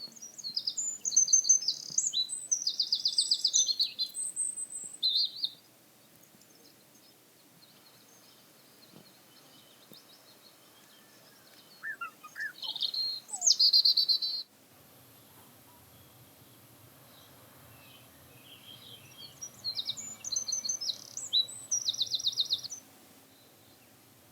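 Songbird singing: three phrases of high chirps and rapid trills, each a few seconds long, separated by quiet pauses. The first and last phrases have the same pattern, and the middle one opens with a few lower falling notes before a fast buzzy trill.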